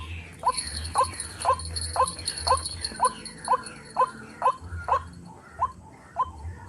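White-breasted waterhen (ruak-ruak) call, a short note repeated steadily about twice a second. A thin steady high-pitched tone sounds alongside it for the first half.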